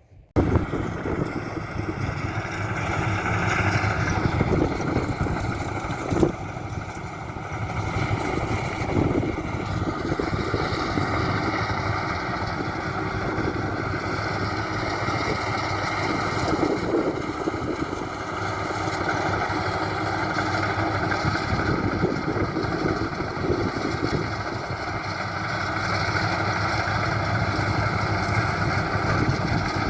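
Maxxi Bimo 102 rice combine harvester running steadily at work, its engine and machinery giving a continuous mechanical drone that starts abruptly about half a second in.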